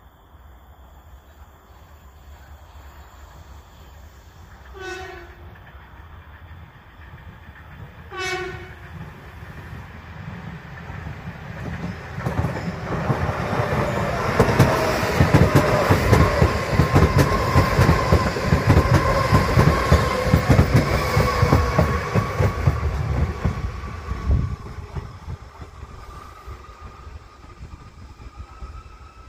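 Mallorca commuter train sounding two short horn blasts a few seconds apart as it approaches, then passing close by with rhythmic wheel clatter and a steady whine, fading as it runs into the station, with a rising whine near the end.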